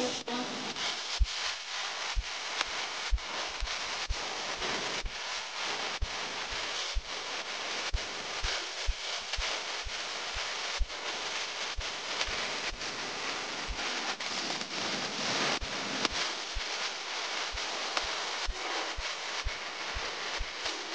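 Rubbing and wind noise on a handheld camera's microphone: a steady hiss broken by irregular soft low thumps, about one or two a second.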